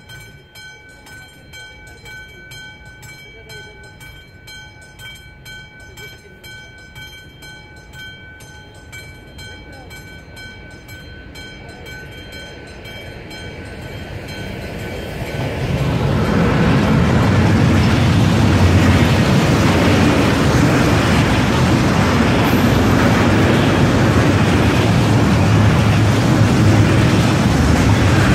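AŽD 71 level-crossing warning with its classic bell ringing in steady repeated strokes, while an approaching freight train grows louder. About halfway through, the train of covered hopper wagons reaches the crossing and its loud passing noise drowns out the bell.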